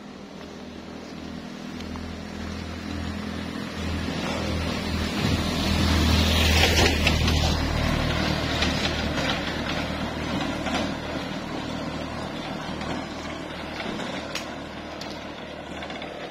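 A small motor cargo vehicle's engine approaches, passes close, loudest about seven seconds in, then fades away.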